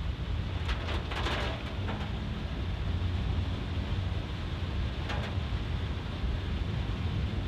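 Car cabin noise while driving in heavy rain: a steady low engine and road drone under a hiss of rain, with a few short sharp noises about a second in and again about five seconds in.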